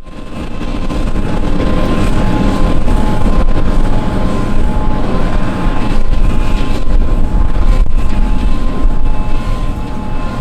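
Harvesting machinery running in the field: a loud, steady mechanical rumble with a thin, constant whine above it. It starts abruptly after silence.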